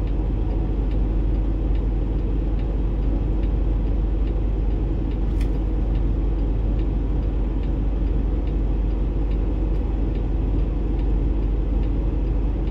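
Steady low rumble of engine and road noise inside a moving truck's cab, with faint ticks about once a second.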